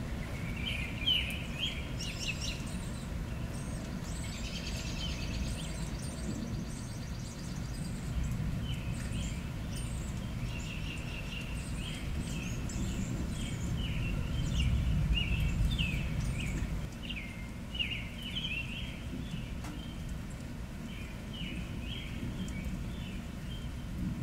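Northern mockingbird calling: a long run of short, varied chirps and phrases, over a low rumble that swells and fades about two-thirds of the way through.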